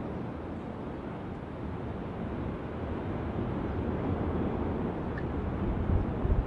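Steady low rumble of an erupting volcanic fissure, mixed with wind on the microphone, with a few louder low thumps near the end.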